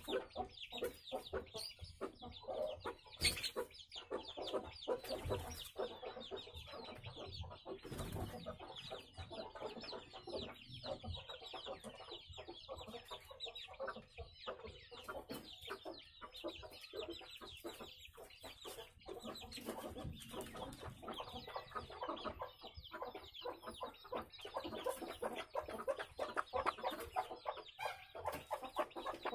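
Desi hens clucking continually, a dense run of short calls, with a single sharp knock about three seconds in.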